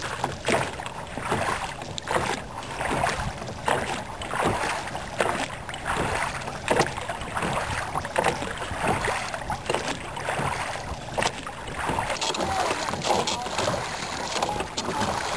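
Canoe being rowed with oars in outrigger oarlocks: water splashing and rushing along the hull, with irregular knocks and clicks from the rowing gear.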